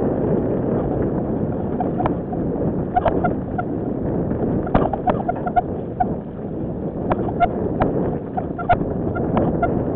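Wind rushing over the microphone of a mountain biker's camera while riding fast down a forest singletrack, with scattered sharp clicks and rattles from the bike jolting over the rough trail.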